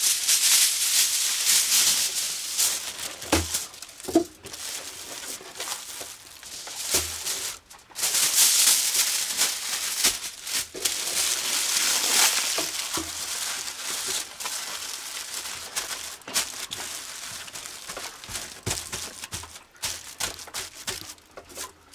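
Aluminium foil crinkling and crackling as it is torn off and folded, in several stretches with brief pauses between them.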